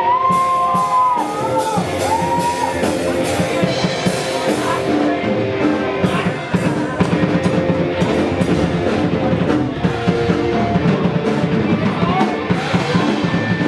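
Live rock band playing a song: drum kit beating steadily under electric guitar, with a sliding melodic line near the start.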